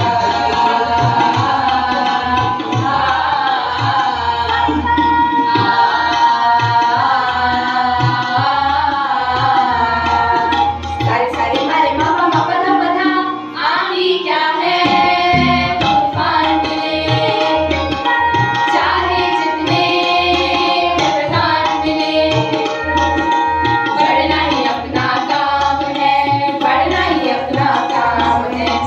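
A group of young voices singing a song together into microphones, accompanied by tabla and harmonium. The tabla strokes pause for about a second midway, then resume.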